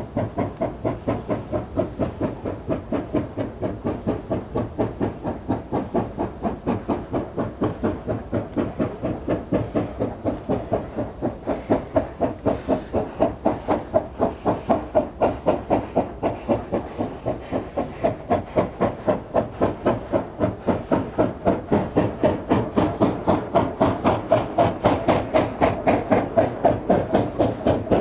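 JS class 2-8-2 steam locomotive chuffing steadily, its exhaust beats coming about three to four a second and growing louder from about halfway through.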